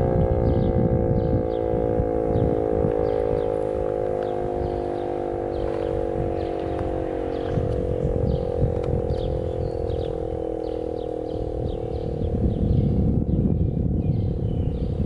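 E.D. Bullard 3H27 "Weltex" mechanical siren winding down at the end of a full-alert signal, its pitch falling slowly as it fades. A low rumble runs underneath, growing louder near the end, with short high chirps repeating throughout.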